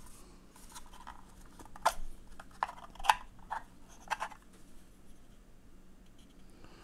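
Plastic clicks and rubbing as the snap-on lens cover of an Elgato Facecam webcam is handled and pressed onto the camera body, clicking into place. A handful of sharp clicks come over the first four and a half seconds, the loudest about three seconds in, then only faint rustling.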